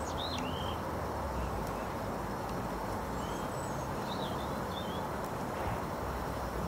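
A small bird chirping a few short calls, near the start and again about three to four seconds in, over a steady background hiss and rumble.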